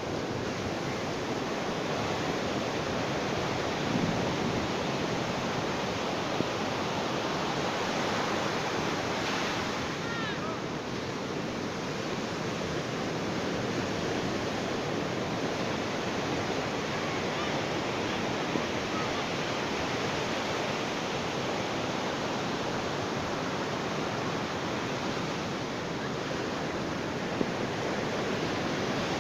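Ocean surf washing onto a beach: a continuous wash of breaking waves that swells and eases slowly. A few faint high chirps sound about ten seconds in.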